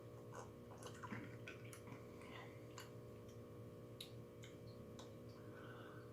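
Quiet sipping and swallowing of a cocktail: faint scattered mouth clicks and smacks over a steady low hum.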